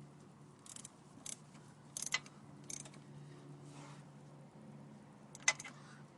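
Short metallic clicks and scrapes of a hand tool working the oil drain plug, five of them spread out, the sharpest near the end, over a faint low steady hum.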